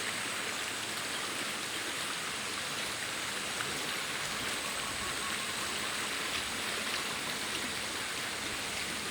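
Rushing water, swollen by heavy rain, making a steady, even rush.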